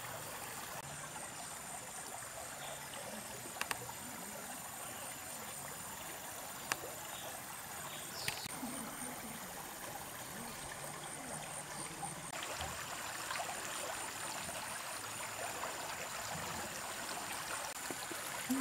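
Shallow stream water running steadily, with a few faint clicks and a thin steady high whine in the background.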